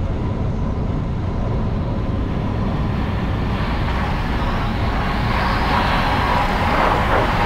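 Cessna 172 cabin noise during the landing flare: the engine running at low power under a steady rush of air over the airframe. A brighter hissing rush builds from about halfway through and grows louder toward the end as the plane settles onto the runway.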